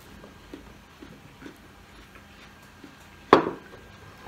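Faint wet chewing and mouth clicks of eating watermelon, then about three seconds in a loud knock of tableware against a wooden table, and a smaller knock near the end.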